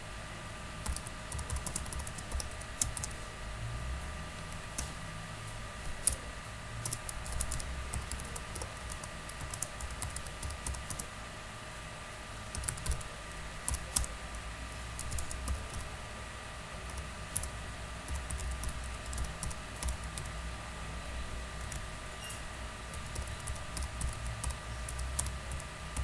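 Typing on a computer keyboard: irregular key clicks in bursts with short pauses, as a line of text and an email address are typed out.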